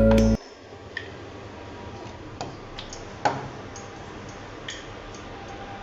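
Background music cuts off suddenly, leaving a quiet room with scattered light clicks and taps, the loudest about three seconds in.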